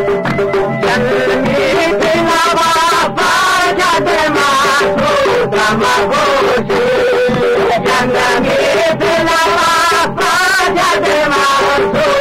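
Traditional regional folk music: an ornamented, wavering melody over a steady, repeating accompaniment.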